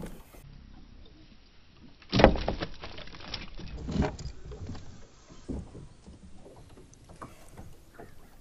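Splashing and knocks in and against a kayak as a freshly caught redhorse flops about and is handled. A loud surge of splashing comes about two seconds in and lasts about a second and a half, with another peak about four seconds in, then light scattered taps.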